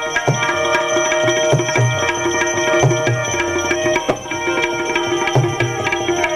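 Tabla playing a steady rhythm, with deep bass-drum strokes and sharper treble strokes, under sustained held notes from a melody instrument: an instrumental interlude of a bhajan, with no singing.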